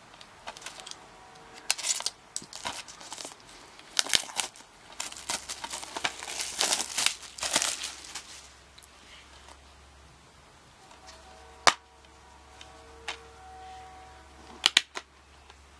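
Cellophane shrink wrap crinkling as it is torn and peeled off a plastic DVD case, for about the first half. Later come a few sharp plastic clicks as the DVD case is opened and the discs are handled: one near the middle and two close together near the end.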